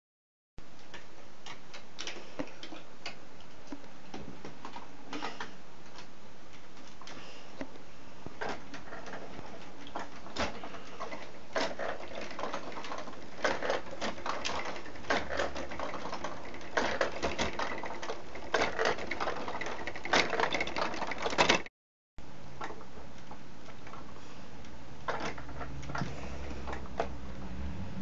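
Plastic gears and reciprocating saw linkage of a toy windmill sawmill built from Duplo and plastic Meccano, clicking and rattling irregularly as the sails are turned by hand. The clatter is busiest in the middle and cuts out for a moment near the three-quarter mark.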